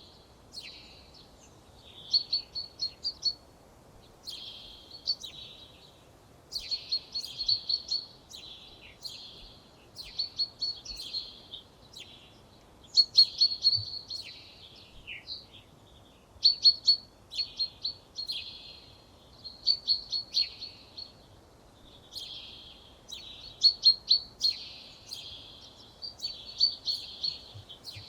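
A songbird singing short, fast phrases of sharp, high notes, each about a second long, repeated every one to two seconds with brief pauses between them.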